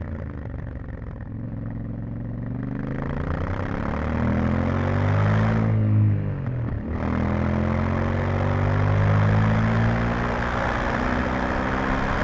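Yamaha Ténéré 700's 689 cc parallel-twin engine pulling under throttle, revs climbing, then dropping briefly about six seconds in as the throttle closes or a gear changes, and climbing again. Wind rushes over the microphone throughout.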